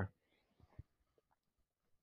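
Near silence: room tone, with one faint short click a little under a second in.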